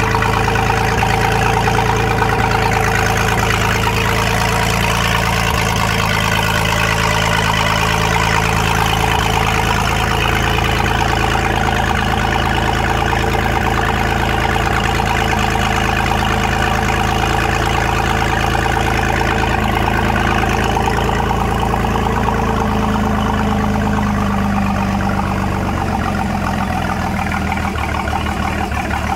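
Volvo Penta 4.3 L V6 marine engine idling steadily on a bench test stand, its water-cooled exhaust spitting water and steam. The pitch shifts slightly in the last few seconds. It is a test run of a new engine before installation, and it runs without trouble.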